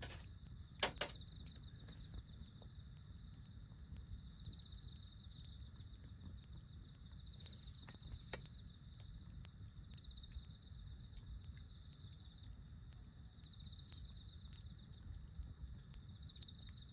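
Crickets or similar insects trilling steadily and high, with a second insect chirping in short pulses every second or two. Over a low rumble, a few sharp crackles of a burning wood campfire, the loudest about a second in and again near the middle.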